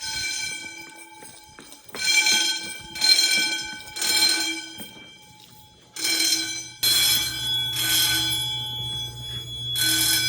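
Wheelock 10-inch fire alarm bells ringing in groups of three bursts about a second apart, repeating every four seconds: the temporal-three evacuation pattern of a fire drill.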